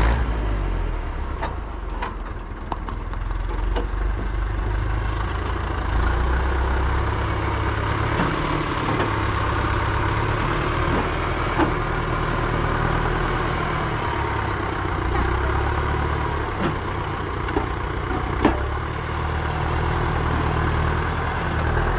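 A vehicle engine running with a steady low rumble, with a few faint clicks and knocks over it.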